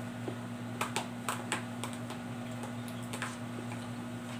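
Metal spoon clicking and scraping against a plastic food tub as it scoops up binignit: four quick clicks about a second in, another a little after three seconds. A steady low hum runs underneath.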